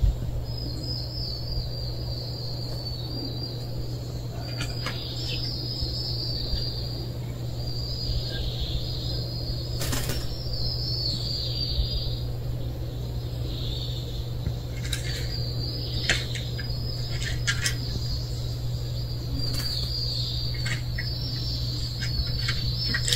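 Outdoor ambience: repeated runs of high twittering chirps over a low steady hum, with a few sharp clicks scattered through.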